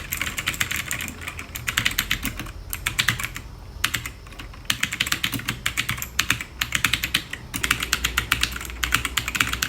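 Rapid key clacking from typing on a budget mechanical keyboard, in quick runs of keystrokes broken by short pauses.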